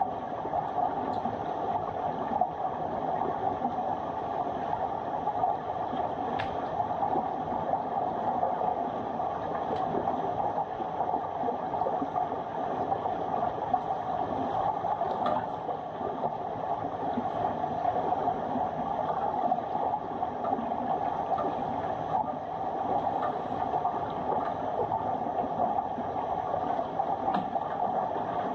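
Steady muffled rushing of water heard underwater through a camera lying on the bottom of a swimming pool, with a few faint ticks.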